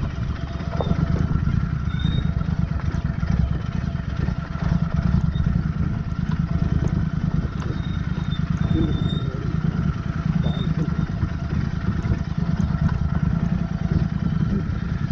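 Royal Enfield Interceptor 650's parallel-twin engine running steadily while the bike rolls down a rocky dirt trail, with a deep rumble and a few light rattles.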